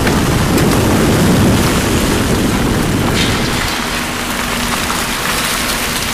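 Wind buffeting the microphone over the road noise of a moving car, a heavy low rumble that eases about four seconds in, leaving a faint steady hum.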